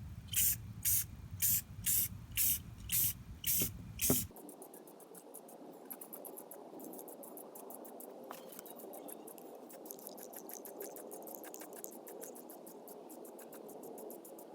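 Aerosol spray-paint can sprayed in eight short bursts about half a second apart, laying a coat of paint. After about four seconds the hissing stops and only faint rapid ticking remains.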